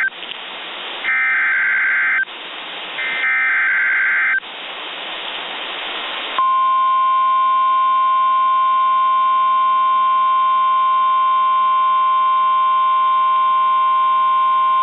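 Emergency Alert System tones from a NOAA Weather Radio broadcast. Two short bursts of SAME digital header data, separated by radio static, are followed about six seconds in by the steady single-pitch 1050 Hz weather radio warning alarm tone, which holds to near the end. The tones mark the start of a severe thunderstorm warning.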